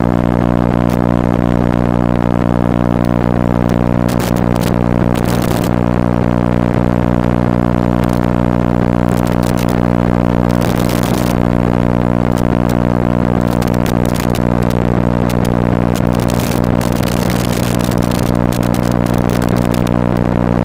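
A loud, steady low buzz with many even overtones that never changes pitch, broken by frequent crackles of static.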